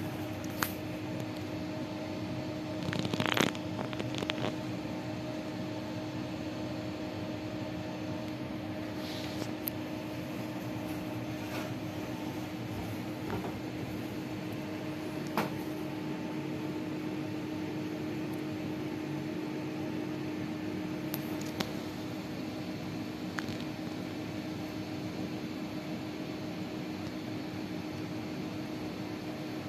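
A steady machine hum with a constant low tone, with a cluster of light knocks about three seconds in and a few scattered clicks later.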